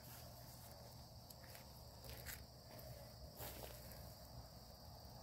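Faint, steady high chirring of field insects, with a few soft steps and scuffs on a dirt path.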